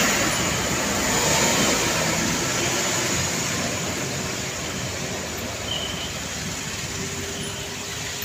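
Heavy truck traffic passing close by: engine and tyre noise, loudest at the start and easing off slowly.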